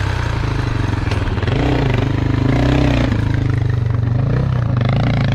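Honda XR650L's single-cylinder four-stroke engine running as the motorcycle pulls away and rides off, the engine note rising and falling with the throttle.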